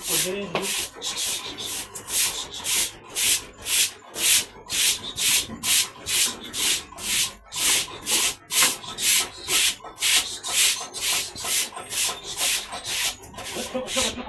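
Stiff broom scrubbing and pushing water across a wet pen floor in quick, even scraping strokes, about two a second.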